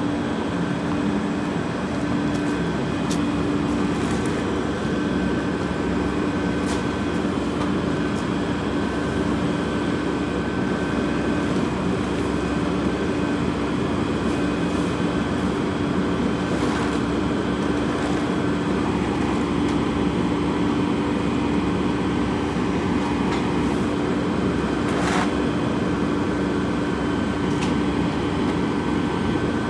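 A heavy truck's engine running steadily, a constant hum with a steady tone over it, and a short high sound about 25 seconds in.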